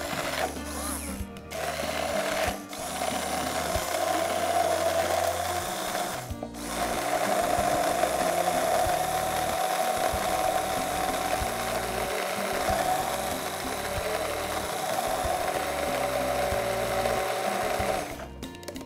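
Hand blender motor running steadily as it purées watermelon chunks into juice, with three brief pauses in the first several seconds, and stopping near the end.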